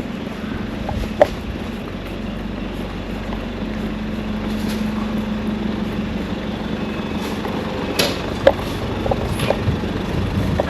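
A motor vehicle's engine running with a steady low hum under road noise, with a few short sharp knocks about a second in and twice near the end.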